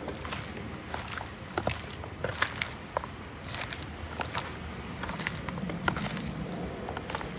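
Salad tongs tossing lettuce coated in a creamy dressing in a bowl: irregular crisp clicks and crinkling of leaves and tongs.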